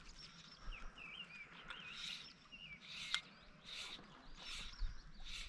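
Small birds chirping and singing faintly. Along with them come short swishes about once a second, fly line being stripped back by hand to work a lure.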